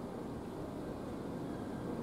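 Boeing 777-200ER's two jet engines at climb power after takeoff: a steady, distant low roar.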